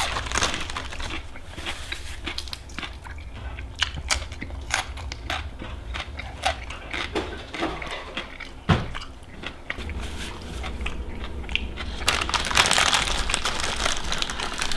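Crunching and chewing of crunchy food (papaya salad with fried pork rinds): sharp crunches and clicks scattered throughout, turning into denser crackling about twelve seconds in.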